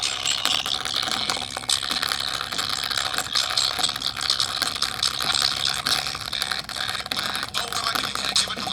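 Rapid mechanical clicking and rattling, dense and continuous, with a faint steady high tone.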